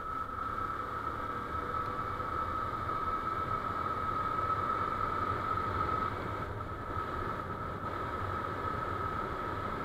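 Steady wind rush on an action camera's microphone over a Yamaha FZ-S V2.0's 149 cc single-cylinder engine cruising at road speed, with a steady high whine on top.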